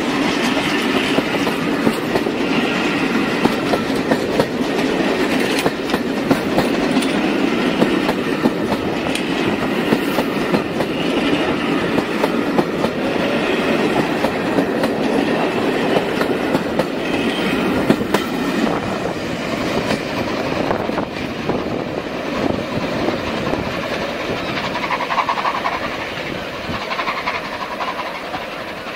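Passenger coaches of a steam-hauled train running through a station without stopping, their wheels clicking steadily over the rail joints. The sound fades over the last several seconds as the train draws away.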